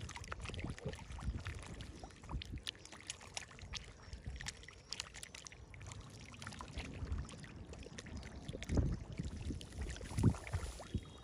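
Many catfish thrashing together in shallow muddy water: a continuous patter of irregular wet splashes and slaps, with two louder, deeper splashes in the last few seconds.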